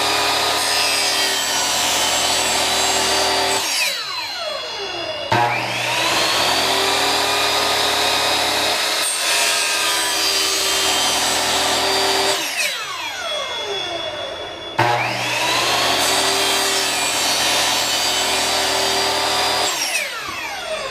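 Electric miter saw cutting 1.5-inch Schedule 40 PVC pipe, three cuts in a row: each time the motor runs at full speed through the cut, then its whine winds down, and it starts again about 5 and 15 seconds in.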